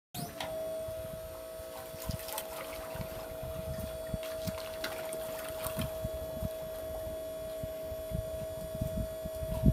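Hydraulic undermount boat lift's pump motor running with a steady whine as the lift's bunks lower into the water, with irregular low knocks and water sloshing around the frame.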